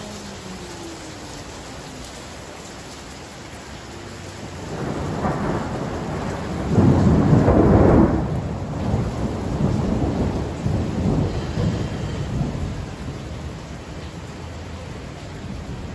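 Steady rain, with a long roll of thunder that builds about five seconds in, peaks a couple of seconds later and rumbles away over the next several seconds.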